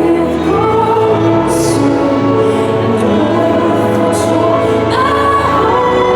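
Singing with musical accompaniment: long held, slowly shifting sung notes, with the consonants of the words audible.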